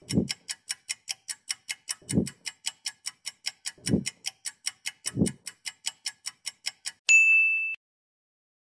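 Quiz countdown sound effect: clock-like ticking, about four ticks a second, with a few low thumps among the ticks. About seven seconds in the ticking stops and a bright chime rings, marking the correct answer.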